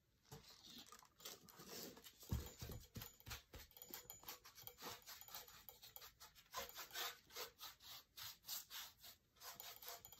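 Faint, quick repeated strokes of a paintbrush rubbing and scratching over a textured lamp base while it is lightly dry-brushed with paint. There is a soft knock about two seconds in.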